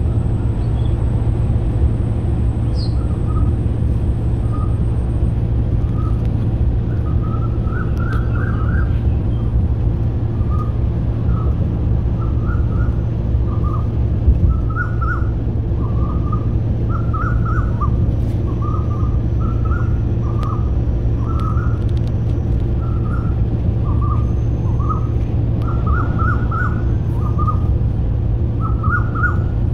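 Birds chirping over and over, short repeated calls, over a steady low rumble that is the loudest sound.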